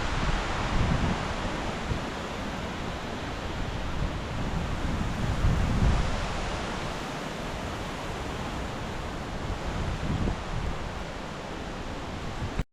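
Strong hurricane wind gusting, with the wind buffeting the microphone in surges; it cuts off suddenly near the end.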